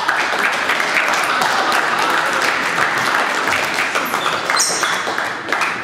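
Audience applauding: many hands clapping together at a steady level, with a brief high squeak about four and a half seconds in.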